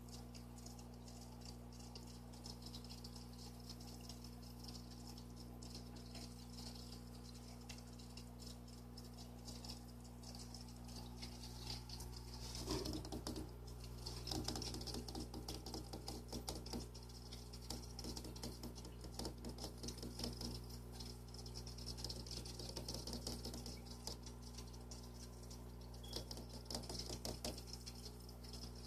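Goldfish aquarium: a steady low hum from the tank's equipment under a dense patter of small water ticks and clicks, which grows busier and louder from about twelve seconds in.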